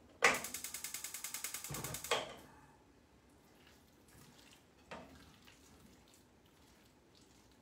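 Gas stove burner's spark igniter clicking rapidly for about two seconds until the burner lights on low heat. Afterwards a faint scrape of a spatula in a frying pan, about five seconds in.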